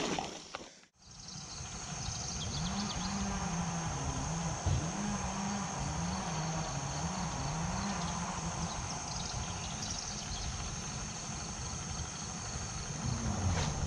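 Insects chirring steadily in a wet grassy field, with a faint low hum rising and falling underneath.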